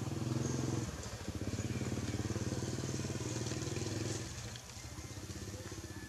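An engine running steadily off-picture: a low pulsing hum that dips briefly about a second in and grows quieter about four seconds in.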